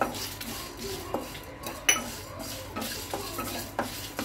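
Wooden spatula stirring and scraping whole coriander seeds and dried red chillies around a nonstick kadai as they dry-roast without oil, in irregular scrapes and clicks. There is one sharp knock against the pan about two seconds in.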